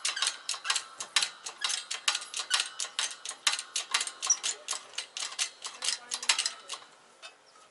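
Rapid, even metallic clicking, about six clicks a second, from a hydraulic shop press being hand-adjusted at its bottle jack and ram while a control arm bushing is centred to be pressed in. The clicking stops about seven seconds in.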